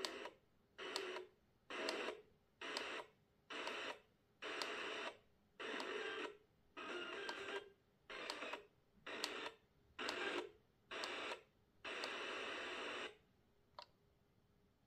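FM radio static from a Philips TAR4406 clock radio's digital tuner as it is stepped manually through empty frequencies. There are about fifteen short bursts of hiss, each opening with a click and cut off by silence as the set mutes between steps; they stop about 13 seconds in.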